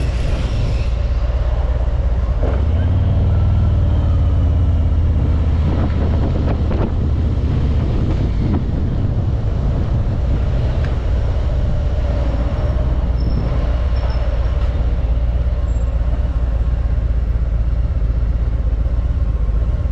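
A car driving through city streets: a steady low engine and road rumble that swells for a couple of seconds a few seconds in.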